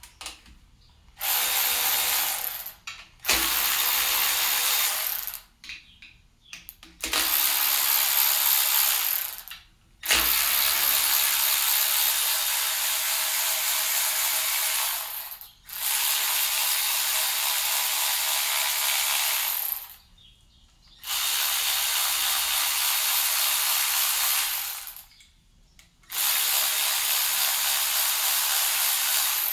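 Power ratchet running in about seven runs of two to five seconds each, with short pauses between: bolts being spun out as the oil pump is removed from the engine block.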